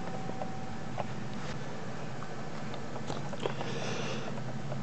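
Handling noise: a few small clicks and a brief rustle about three and a half seconds in, over a steady low hum.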